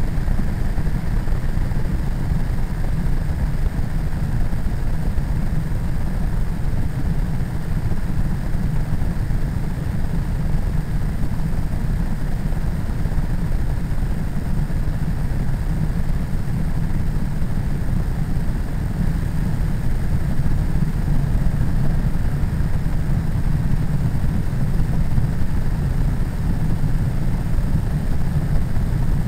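Ultralight trike's pusher engine and propeller running steadily in cruising flight, mixed with wind rushing over the microphone: a constant low rumble that does not change.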